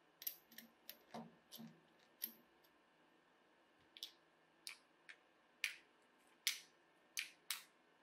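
A dozen or so sharp, separate plastic clicks, irregularly spaced and louder in the second half: a nylon cable tie being fastened around a corded drill's body to hold its chuck key, the strap clicking through the tie's ratchet as it is pulled tight, with the key and drill handled.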